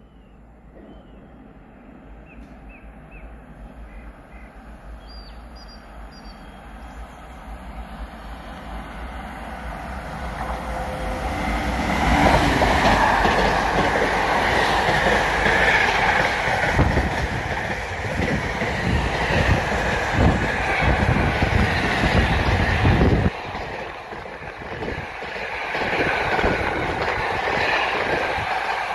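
Container freight train on electrified main line passing through the station: its rumble grows steadily as it approaches, then the wagons go by close and loud with a run of clattering wheel knocks. The low rumble drops off abruptly about two-thirds of the way through while the wagons keep passing. Birds chirp faintly in the first few seconds.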